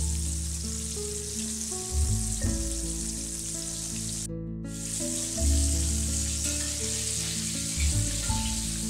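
Chicken pieces coated in flour batter deep-frying in a wok of hot oil, a steady sizzle that drops out for a moment about four seconds in. Light instrumental background music plays underneath.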